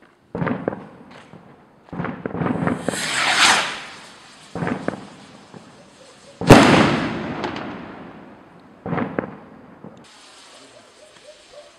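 100-gram firework rockets going off: a series of sharp bangs, each echoing away over a second or two, with a hiss rising in pitch around three seconds in. The loudest bang comes about six and a half seconds in.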